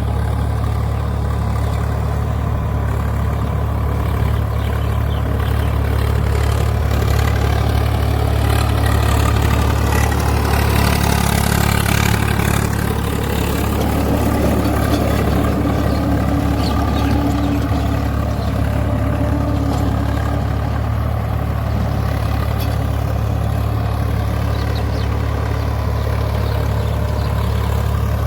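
Swaraj 855 FE tractor's three-cylinder diesel engine running at a steady, even speed.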